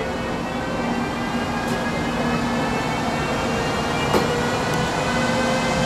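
Trenitalia E.402B electric locomotive pulling out with a train, its traction drive whining in several tones that slowly rise in pitch as it gathers speed, over a low rumble of wheels. A single sharp click about four seconds in.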